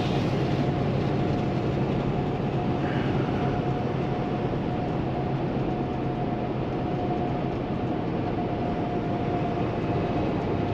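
Cab interior of a 2016 Kenworth T680 semi truck cruising at highway speed: the steady drone of its PACCAR MX-13 diesel engine and road noise, with a thin steady whine over it.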